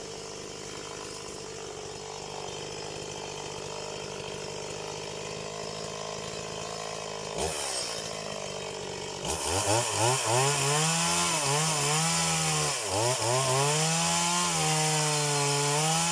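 Stihl MS180 two-stroke chainsaw engine running steadily at low speed, then revved up about seven seconds in. About nine seconds in it goes to full throttle and runs loud at high speed, its pitch repeatedly rising and dipping before holding high.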